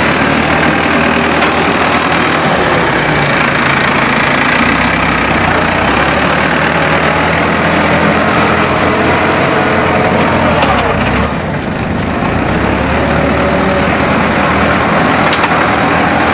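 Farmtrac 6065 tractor's diesel engine running loud and steady while the loader works, its note dropping briefly about two-thirds of the way through.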